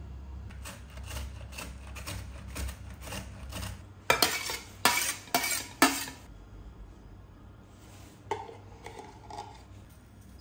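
Dishes and metal utensils being handled: a run of light strokes for a few seconds, then four loud clattering knocks about four to six seconds in, and a few softer knocks near the end. A low hum underneath stops about four seconds in.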